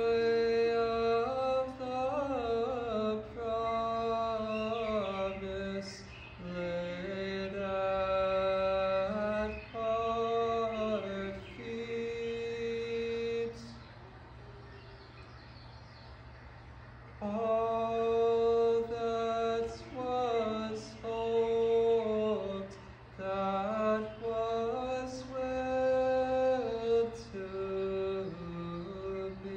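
A man singing slow, chant-like phrases of long held notes, with a pause of a few seconds about midway, over a faint steady low hum from the tape-loop setup.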